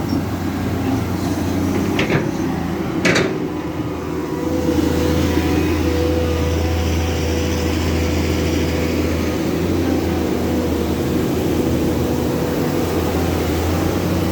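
Dump truck engine running steadily, with two sharp knocks about two and three seconds in. The engine then grows louder about four to five seconds in and holds there.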